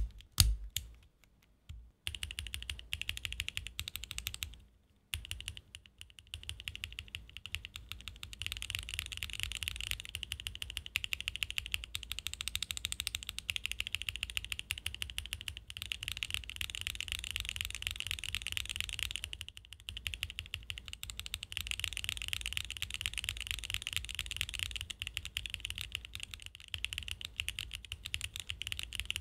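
Mechanical keyboard with TTC Twilight Misty switches being typed on fast and continuously: a dense run of keystrokes, broken by a few short pauses.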